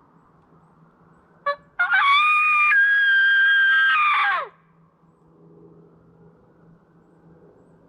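Coyote howler locator call blown close by: a short yelp, then one long howl that holds high, steps down to a lower pitch and drops away at the end. It is a locator call used to make a roosted wild turkey shock-gobble.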